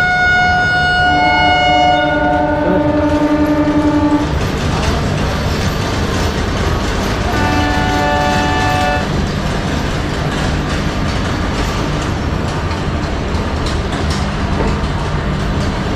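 Electric train horn sounding twice as an express train pulls out: a long blast of several tones together lasting about four seconds, then a shorter one about seven seconds in. Between and after the blasts, the steady rumble and clatter of the coach starting to roll.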